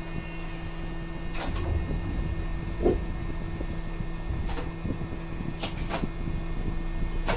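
Interior running noise of a subway car: a steady low hum and rumble, with occasional sharp clicks.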